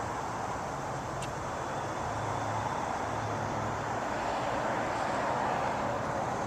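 Steady hum of distant road traffic, swelling slightly a few seconds in, with a brief faint tick about a second in.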